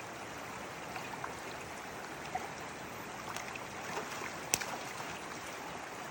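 River water running steadily over stones, a continuous rushing stream sound. About four and a half seconds in there is one sharp click, with a few fainter ticks scattered through.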